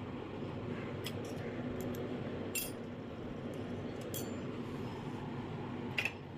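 Light metallic clinks of miniature stainless-steel toy spoons being handled and set down on a concrete floor: a handful of small, sharp clicks, the loudest near the end, over a steady low hum.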